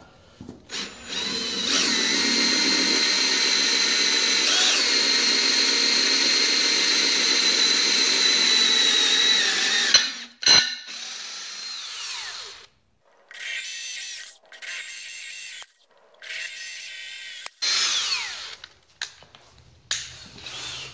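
Cordless drill boring 11/64-inch holes through the steel center flange of a rally-style wheel: one long steady run with a high motor whine lasting about nine seconds, then several shorter bursts, some ending in a falling whine as the drill spins down.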